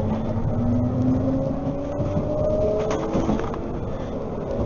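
CAF Urbos 3 tram heard from inside the passenger car as it pulls away and gathers speed: the traction motors whine in tones that rise slowly in pitch, a fresh rising tone starting about three seconds in, over a steady low rumble of wheels on rail.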